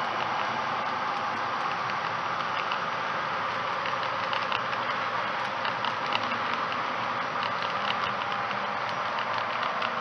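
HO-scale model trains running on the track: a steady motor whir with light ticking.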